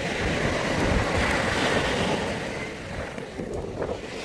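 Surf washing onto the beach, swelling and easing, with wind buffeting the microphone.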